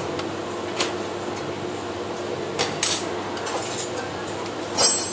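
Light metal clinks of a stainless steel saucepan against steel cake rings and tray as melted chocolate is poured. There are about four clinks over a steady kitchen background, and the loudest comes near the end with a brief ring.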